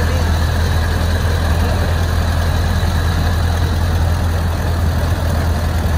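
1909 Ford Model T's four-cylinder engine running steadily while the car drives along a paved road, a constant low drone mixed with road noise.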